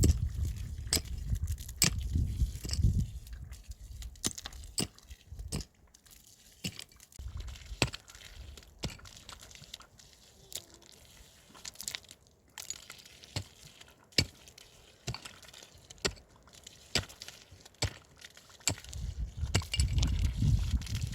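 Irregular sharp clicks and knocks, hard objects striking, sparser in the middle. A low rumble underlies the first few seconds and returns near the end.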